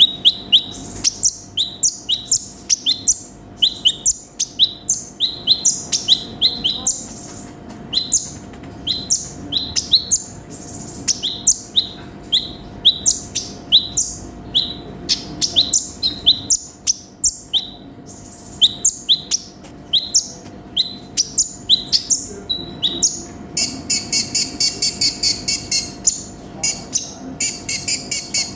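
Konin (sunbird) singing: quick groups of short, sharp, high chirps, breaking into a fast rattling trill near the end.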